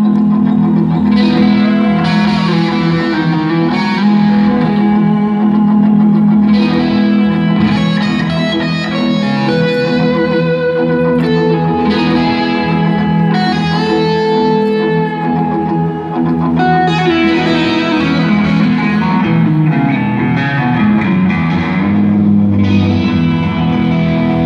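Distorted electric guitar, a Flying V, playing a slow melodic solo line with several long held notes over a steady low sustained tone. It comes through a loud concert PA in a large hall.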